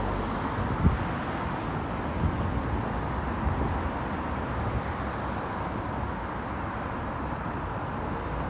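Road traffic running past steadily, a continuous rumble and hiss with a sharp thump about a second in and a few lighter knocks. A few short high chirps, like small birds, come through now and then.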